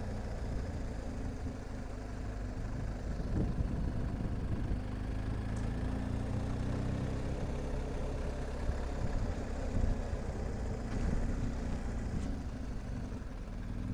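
BMW R 1250 GSA's boxer-twin engine running steadily at low revs while riding.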